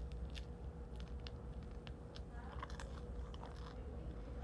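A person biting into and chewing a mouthful of bread, with small crunchy clicks scattered through the chewing.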